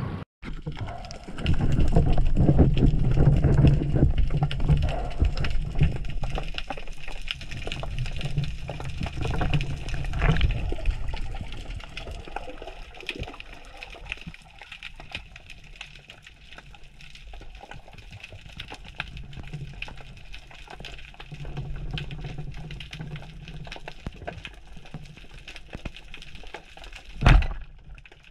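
Underwater sound through a camera housing: rushing, bubbling water full of small crackling clicks, louder for the first ten seconds or so. Near the end comes a single sharp report: a speargun fired at a red mullet, a shot that misses.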